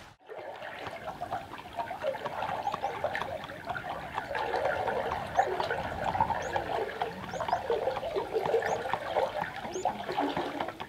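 Tidal water trickling and gurgling as the rising tide flows into the channel.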